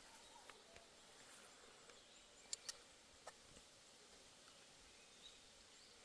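Near silence: faint outdoor ambience, with a few sharp clicks about two and a half to three and a half seconds in.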